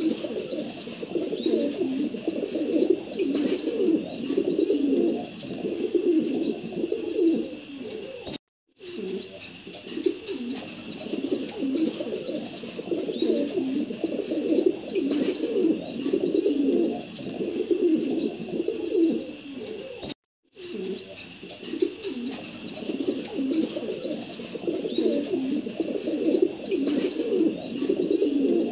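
Pigeons cooing continuously in overlapping, throaty calls, with repeated high chirps of small birds above them. The sound cuts out twice for a moment, about eight and twenty seconds in.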